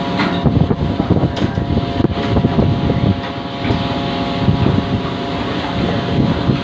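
A fishing boat's machinery running steadily: a droning hum with a steady whine of several even tones, with wind rumbling on the microphone.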